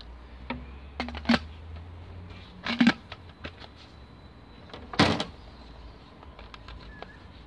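Irregular plastic knocks and clicks as the black corrugated plastic parts of a fibre-optic splice closure are handled and strapped together with a rubber band. The loudest knock comes about five seconds in.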